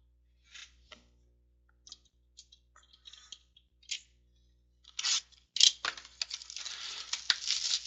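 Plastic wrap on a sealed trading card box being torn and crinkled off. It starts as faint scattered clicks and rustles, then turns into denser, louder crinkling and tearing from about five seconds in.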